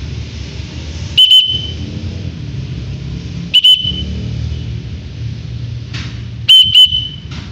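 Lovebird giving short, shrill calls in three loud bursts, some doubled, about two and a half seconds apart, over a steady low rumble.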